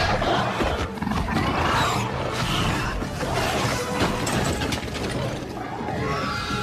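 Film sound effects of a velociraptor and the Indoraptor fighting: snarling roars and screeches with a few crashing impacts, over background music.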